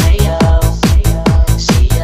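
Electronic dance music with a steady, fast kick-drum beat and cymbal strokes.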